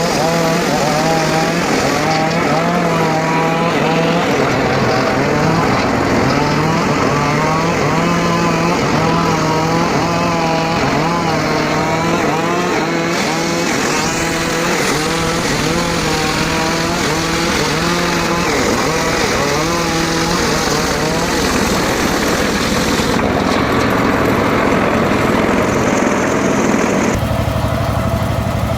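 Engine-driven homemade circular saw cutting teak wood, the engine note repeatedly dipping and recovering as the blade takes the load. Near the end the cut finishes and the engine settles to a steadier idle.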